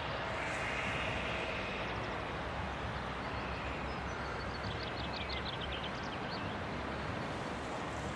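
Distant Ffestiniog Railway double Fairlie steam locomotive Merddin Emrys working a train, heard as a steady far-off rumble and hiss without a distinct exhaust beat. A short run of high chirps comes through about five seconds in.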